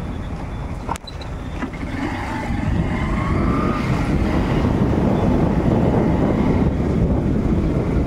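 Steady road and engine rumble from riding in a moving vehicle, with wind buffeting the microphone. A single sharp click about a second in.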